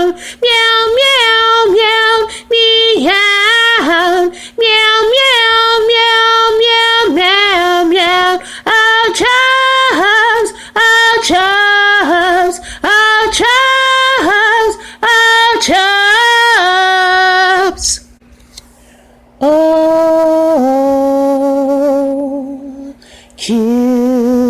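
A woman singing a melody in a series of held notes with vibrato, pausing briefly about 18 seconds in and again near the end.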